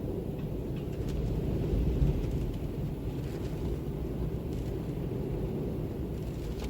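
Wind blowing as a steady, low rumbling noise, swelling briefly about two seconds in.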